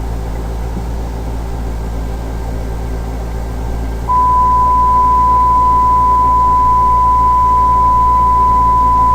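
Censor bleep: a single steady beep tone that switches on abruptly about four seconds in and holds, much louder than the low background hum before it.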